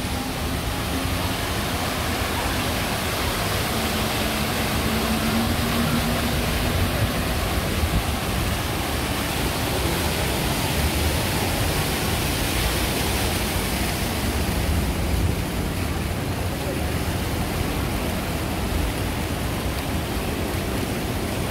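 Steady, even rushing noise of outdoor city ambience, with a faint low hum during the first several seconds.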